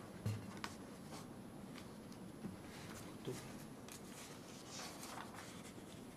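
Quiet room with faint scattered clicks and rustles, and a soft thump shortly after the start.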